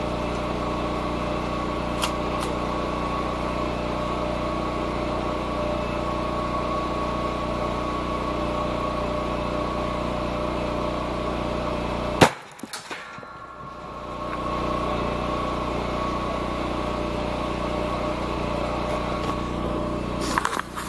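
A single rifle shot about twelve seconds in, one sharp crack as the bullet blows the target rock apart. A small engine drones steadily before and after the shot. The drone drops out for about two seconds right after the crack. A few clicks come near the end.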